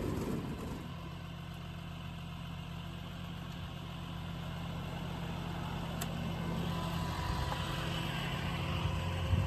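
Diesel engine idling steadily, settling to idle within the first second after being revved down.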